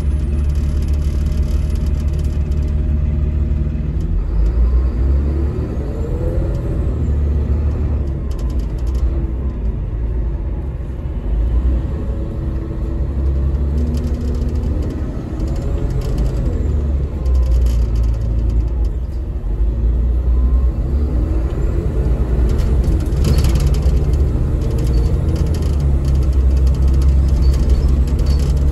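Caterpillar diesel engine of a Denning Phoenix low-floor bus heard from inside the cabin while under way: a steady low rumble, with the engine note rising and falling in pitch three times as the bus speeds up and slows. A brief sharp noise cuts in a little over three-quarters of the way through.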